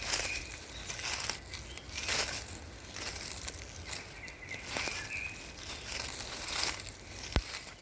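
Footsteps crunching and rustling through dry fallen leaves at a steady walking pace, about one step a second, with a single sharp click near the end.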